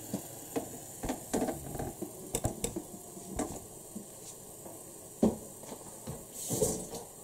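Light knocks and clicks of clay cookware being handled and a clay pot set down on the gas stove's grate, with a sharper knock about five seconds in and a short hiss near the end.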